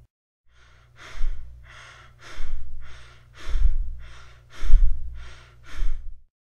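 A person breathing rapidly and shallowly through the mouth: tachypnea, quick airy in-and-out breaths at about one full breath a second.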